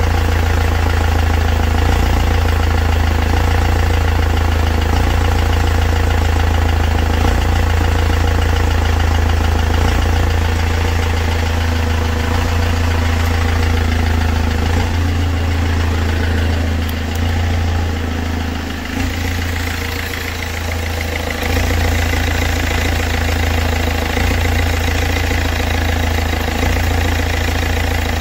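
Mercedes-Benz C220 engine idling steadily, a strong low hum that eases slightly for a moment around the middle.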